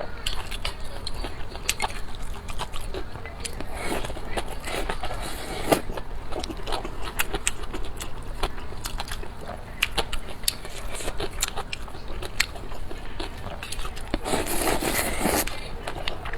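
Close-miked eating: biting and chewing with many irregular sharp, wet clicks and crunches, growing denser and louder for a moment near the end.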